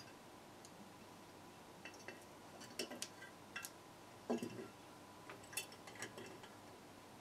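Faint, scattered clicks and clinks of a glass clip-top jar and its wire clasp being handled, with wires scraping over the glass rim as the burnt-out charger circuit board is pulled out. A sharp knock comes right at the end.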